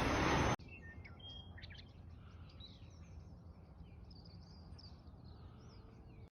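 Faint birds chirping, many short twittering calls over a low background hum. A steady noise cuts off about half a second in.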